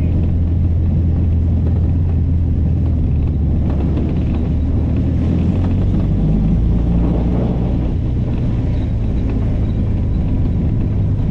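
1935 Austin 7 Ruby's small four-cylinder side-valve engine running on a drive: a steady low drone whose pitch drops about six seconds in.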